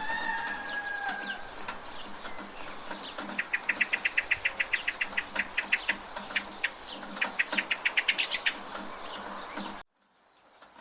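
Village rain ambience: a steady hiss of rain under birds calling, first a drawn-out call, then a bird chattering in a fast run of short notes, about eight a second, for about five seconds. The sound cuts out abruptly near the end.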